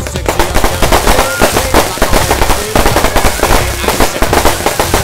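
A fireworks display going off: rapid, dense popping and crackling from rockets and bursting shells, one report hard on the heels of the next.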